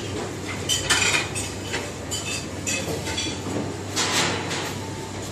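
Gloved hands working coarse salt on a round metal tray: irregular scraping of salt and clinks of the metal, loudest about a second in and again about four seconds in.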